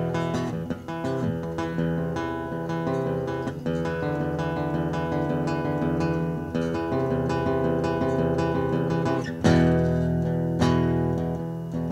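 Background music led by guitar, plucked and strummed, with a stronger chord about nine and a half seconds in.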